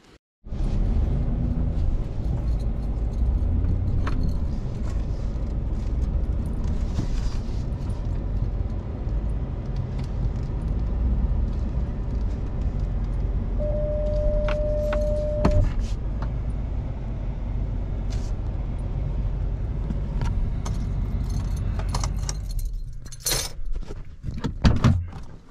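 Truck driving along a rough dirt trail: a steady low engine and road rumble with some jingling. A brief steady beep comes about two-thirds of the way through. The rumble stops near the end, giving way to a few knocks and clicks.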